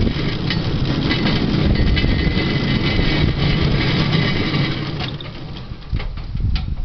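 Wheels of a pedal-powered rail trolley rolling and rattling over old rails with a steady rumble. The rumble eases about five seconds in, followed by a few sharp clicks near the end.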